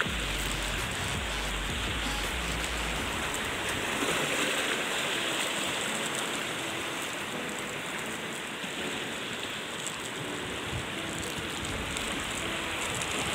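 Steady hiss of sea water washing along the shore.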